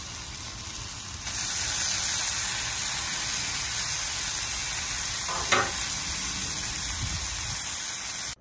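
Brisket sizzling steadily as it sears on a Blackstone flat-top griddle, pressed down under a grill press; the sizzle gets louder about a second in. There is a brief clack about five and a half seconds in.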